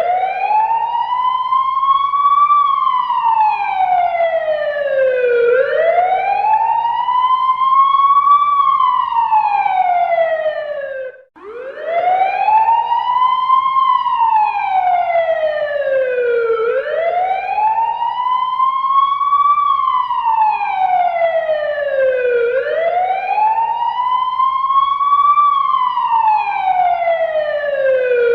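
Fire truck siren wailing, its pitch slowly rising and falling about once every six seconds. It cuts out briefly about eleven seconds in and starts again on a fresh rise.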